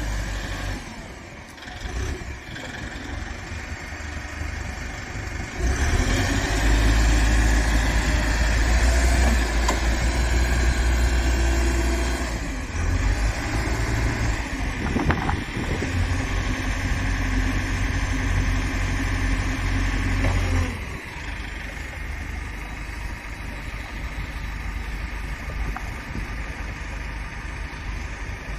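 Rough-terrain forklift's Cummins diesel engine running. It grows much louder about six seconds in, dips briefly near twelve seconds, and stays up until about twenty seconds before settling back to a lower, steady run.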